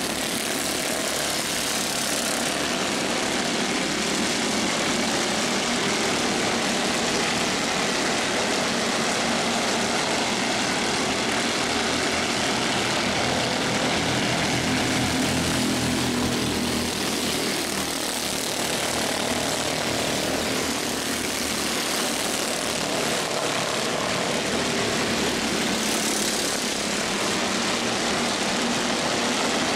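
A field of Mini Cup race cars running at speed around an oval, their engines making a steady, continuous drone.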